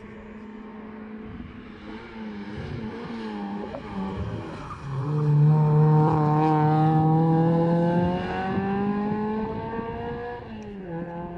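Hill-climb race car's engine accelerating out of a hairpin. Its note wavers at moderate revs at first, then climbs steadily and loudly for about five seconds under full throttle, and drops sharply with an upshift near the end.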